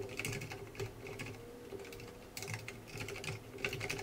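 Typing on a computer keyboard: short bursts of key clicks with brief pauses between them.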